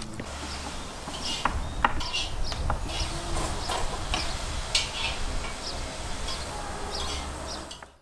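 Outdoor ambience: a steady low rumble and hiss, with scattered short, high chirps and clicks throughout. It cuts off abruptly at the end.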